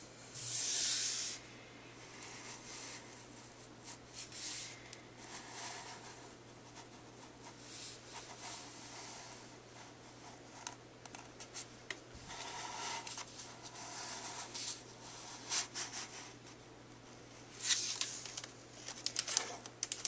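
Handling noise from a handheld camera being moved around: soft, scattered rubbing and scratching, the loudest a hissy rub about a second long near the start, over a faint steady low hum.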